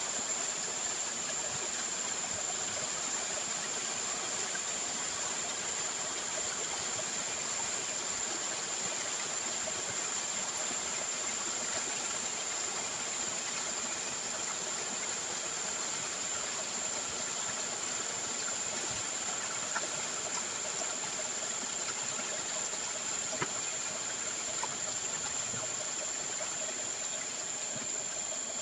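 Slurry from the emptied gold-ore drums pouring out of pipes through cloth filter bags into a concrete settling pit: a steady rushing splash of water, with a steady high-pitched whine over it.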